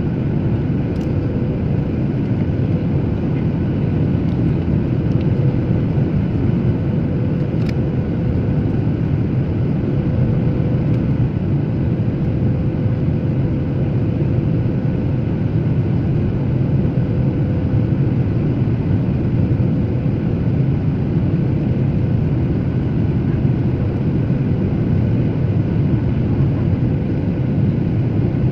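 Steady cabin drone of a jet airliner in flight on descent, engine and airflow noise heard from a window seat, with a faint steady hum running through it.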